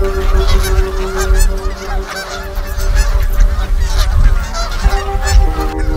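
Many waterfowl calling continuously over a low rumble of wind on the microphone. A soft music bed of held chords is faint at the start, fades out about a second and a half in, and comes back near the end.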